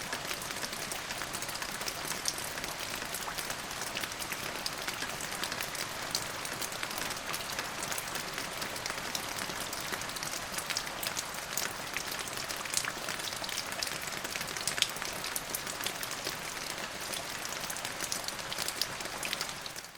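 Steady rain falling, a continuous hiss dotted with many separate drop ticks and splashes. It fades out right at the end.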